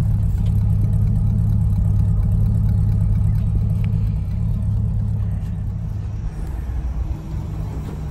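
Pontiac Parisienne engine idling through its newly built twin exhaust, a steady deep rumble from the two tailpipes. It gets a little quieter near the end.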